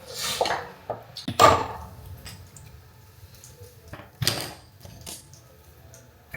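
Several short clattering, rustling handling noises, as of small objects being picked up and set down, the loudest about a second and a half in.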